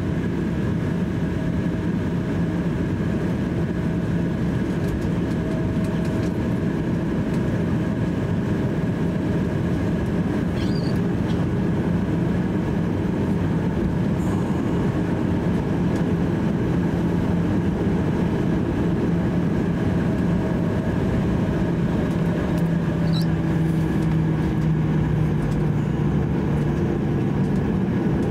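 Cabin noise of a Boeing 737-800 taxiing: a steady hum over a rumble from its CFM56-7B engines near idle. The low hum grows a little stronger about 23 seconds in.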